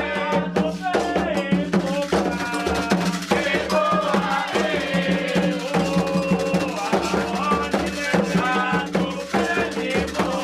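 Candomblé ritual music: atabaque hand drums beaten in a steady, driving rhythm with a shaken rattle, and voices singing over them.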